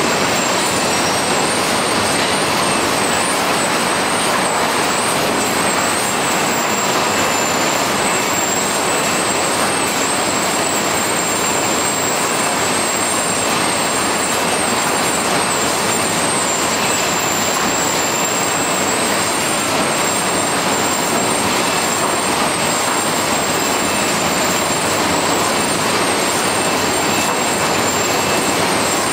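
Steady machinery noise of a running poultry processing line, its motors and conveyors going without a break, with a thin high whine that wavers slightly in pitch.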